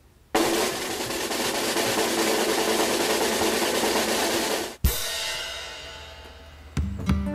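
Drum roll on a snare drum lasting about four and a half seconds, ending in a cymbal crash that rings away, as a build-up to a reveal. A strummed guitar tune starts near the end.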